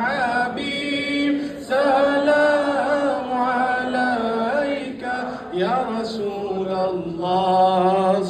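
Male voice singing a slow Sufi devotional chant into a microphone, in long held, winding phrases of a few seconds each, over a low sustained note.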